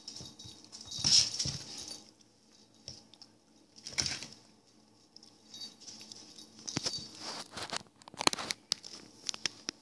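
A puppy scrabbling at and tugging a plush duck toy on a wooden floor: irregular scuffles and rubbing with sharp claw clicks. They come about a second in, again around four seconds, and most busily from about seven to nine seconds.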